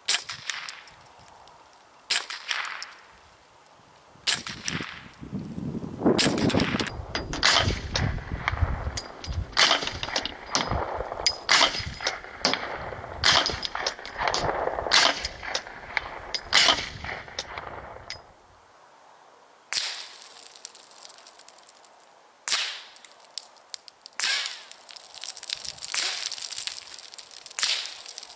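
A string of shots from a Magnum Research .22 LR rifle, each a short sharp crack. The first few come about two seconds apart, then a quicker run follows with a low rumbling noise underneath.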